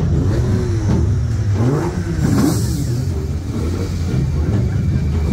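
Rally car engine idling with several quick throttle blips, each one rising and falling in pitch, mostly in the first two seconds.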